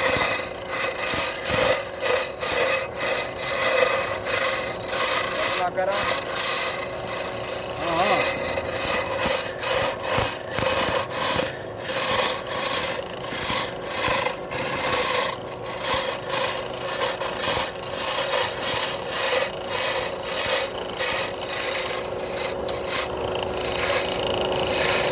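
Wood being turned on a lathe: a cutting tool scrapes the spinning wood in repeated strokes, over a steady hum from the machine.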